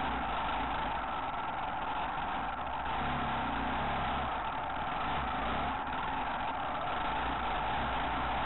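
Off-road motorcycle engine running under load on a muddy trail, heard up close from an onboard camera with a steady rush of noise over it. The engine note shifts in pitch in the middle.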